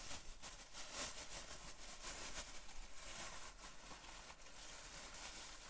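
Faint, intermittent rustling of paper sandwich wrappers as a wrapped sub is picked out, with short scratchy flare-ups over a low hiss.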